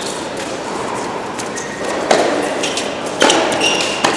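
Tennis ball struck back and forth by rackets during a doubles rally, several sharp hits, the loudest about two and three seconds in, each ringing on in a large hall, with short shoe squeaks on the hard court.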